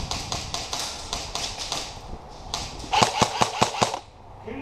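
Airsoft guns firing: scattered clicks and shots, then a rapid string of about seven sharp shots about three seconds in.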